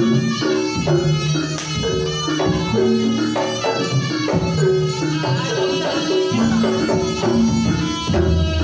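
Live jaranan music: a Javanese ensemble with kendang hand drums and tuned gong-chime percussion playing a steady repeating melody in short stepped notes.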